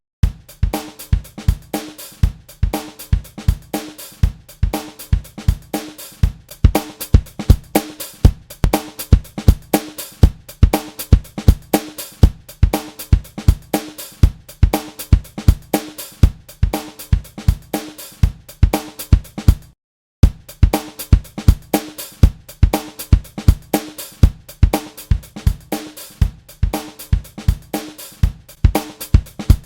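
A funk drum-kit loop of kick, snare and hi-hat playing steadily. It stops for a moment about twenty seconds in and restarts, which marks the switch from the loop played dry to the loop played through Logic's Enveloper transient plugin, shaping the attack and release of the kick and snare.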